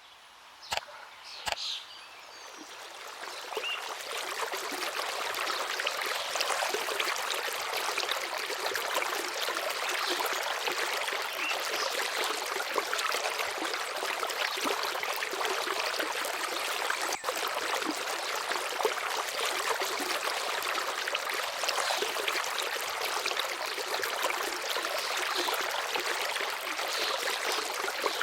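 River water flowing in a steady rush that swells up over the first few seconds, with a few sharp clicks near the start.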